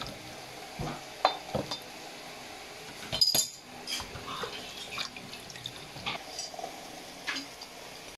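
Cut okra knocked off a plastic cutting board with a kitchen knife into a stainless steel bowl of water and washed by hand: scattered clinks and knocks against the metal bowl and sink with splashing water. The loudest clatter comes a little over three seconds in.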